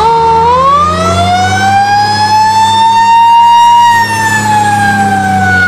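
Fire-engine siren in one slow wail: the pitch climbs over the first couple of seconds, holds, sinks after about four seconds and starts to climb again near the end, over a steady low hum.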